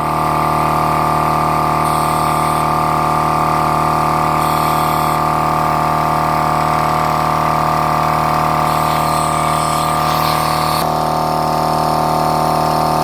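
Battery-powered Dynamic portable air compressor running steadily: a constant motor-and-pump hum whose tone shifts slightly about eleven seconds in.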